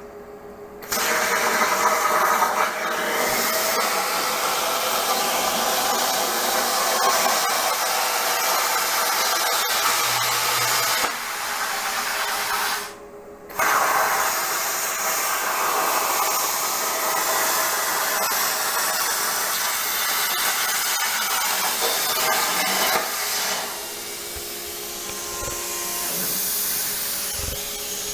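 CNC plasma cutter torch cutting steel sheet, a loud steady hiss of the arc and air jet that starts about a second in. It breaks off for about half a second near the middle, then resumes. About three quarters of the way through the cutting hiss stops and a quieter hiss carries on.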